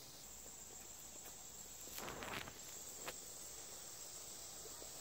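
Steady high-pitched insect chorus in summer greenery, with a brief scuffing rustle about two seconds in and a single click about a second later.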